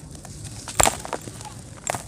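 Dry brown clay lumps cracking and crumbling by hand: a sharp snap about a second in, the loudest sound, and a second crack near the end.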